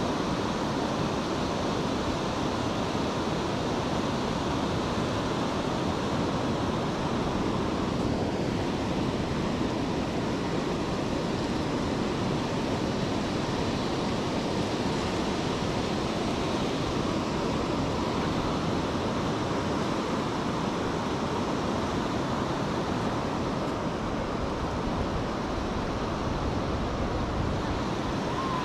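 Surf washing in on a flat sandy beach: a steady, unbroken rush of waves.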